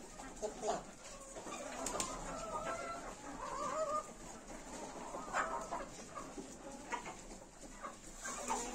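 Domestic hens clucking, with wavering calls a couple of seconds in, and a few short knocks scattered through.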